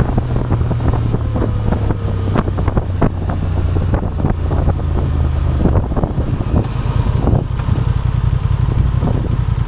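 Honda Transalp 750's parallel-twin engine running off the throttle while the motorcycle slows, with heavy wind noise buffeting the microphone. The engine's steady note changes about six seconds in.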